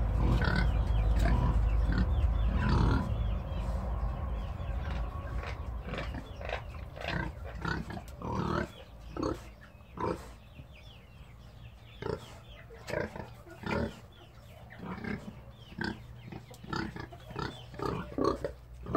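Domestic pig grunting over and over in short grunts, about one every half second to second. A steady low rumble sits under the first few seconds.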